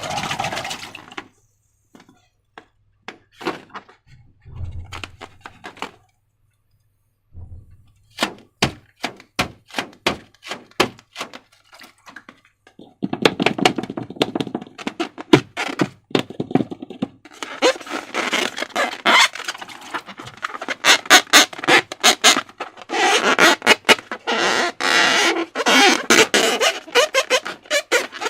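Slime being squished and kneaded by hand: sticky clicks and pops of trapped air, scattered at first, then packed into dense crackling from about halfway in.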